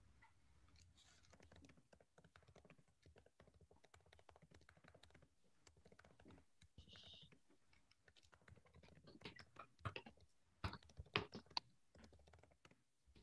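Faint, irregular tapping of a computer keyboard, heard over a video call, with a louder run of keystrokes about nine to twelve seconds in.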